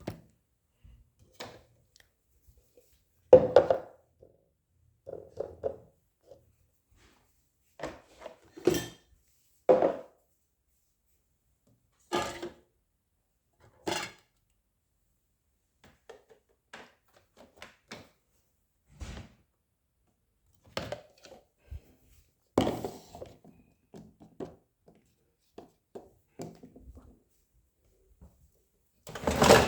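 Irregular knocks and thunks, a dozen or so scattered through the stretch with quiet between them, the loudest a few seconds in and near the end: objects being handled and set down.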